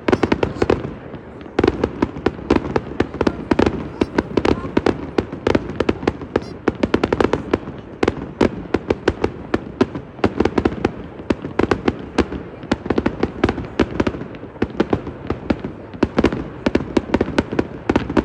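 Fireworks going off in a dense, rapid run of cracks and bangs, many a second, with a short lull about a second in.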